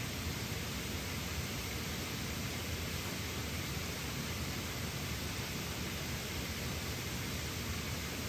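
Water pouring over a small waterfall: a steady, even rush that does not change.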